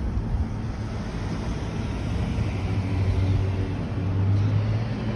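Low engine hum of a motor vehicle, swelling about three to four seconds in, over a background of outdoor noise.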